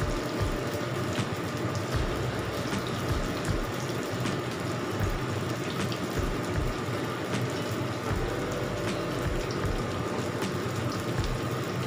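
Vegetable fritters of shredded cabbage and carrot in flour batter deep-frying in hot oil in a wok: a steady sizzle full of small pops and crackles.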